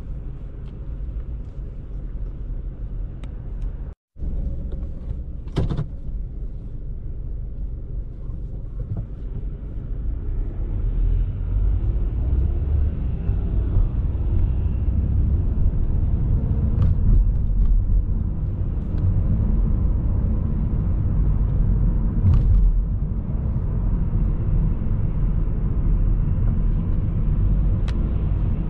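Car engine and road rumble heard from inside the cabin. It is low at the stop, then grows louder about ten seconds in as the car pulls away and drives on. The sound cuts out for a split second about four seconds in, and there are a few faint clicks.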